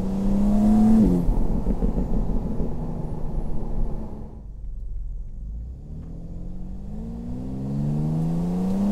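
BMW M2 G87's twin-turbo straight-six under acceleration: revs climb to a gear change about a second in, the engine note turns rougher and then quietens midway, and the revs rise again in a long steady climb over the last few seconds.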